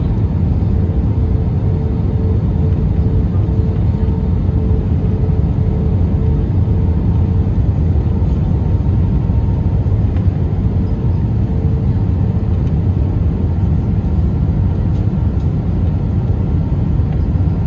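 Cabin noise of an Airbus A320-214 in flight: its CFM56-5B turbofan engines and the rushing air give a steady, deep rumble, with a faint steady hum that fades out about twelve seconds in.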